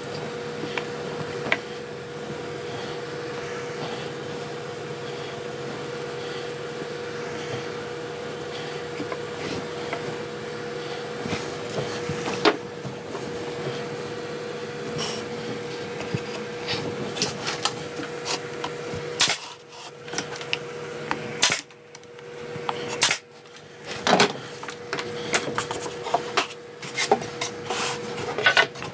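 A steady machine hum with one constant tone runs under the workshop sounds. In the second half, pieces of wood are handled and set down with a series of sharp knocks and clatters.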